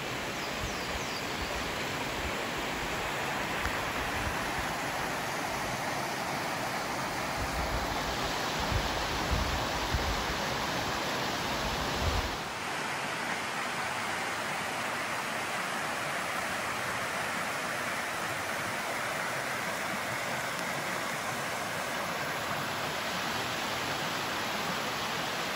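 Ketchum Run, a mountain creek, rushing over rock ledges and small cascades in a steady hiss of water. Low rumbling bumps on the microphone in the first half; from about twelve seconds in the water sound is smoother and even.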